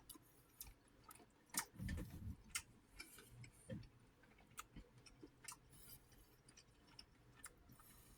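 Faint close-up eating sounds: soft, irregular wet clicks of a mouth chewing food, with a brief low sound about two seconds in.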